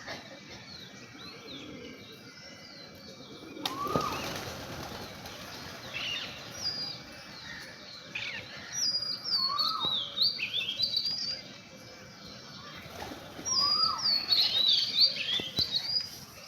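Birds chirping and calling: many quick high chirps, repeated louder rising-then-falling calls, and wings flapping.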